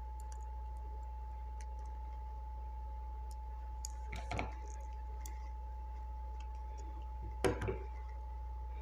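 Steady low electrical hum with a thin steady tone above it, and scattered faint clicks from a crimped RJ45 plug and patch cable being handled. Two brief murmurs come about four seconds in and near the end.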